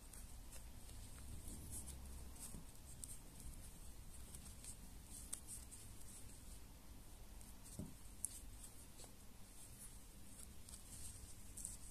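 Faint scratching and rustling of a metal crochet hook and yarn being worked through the edge holes of a felt shoe sole, with one light tap about eight seconds in.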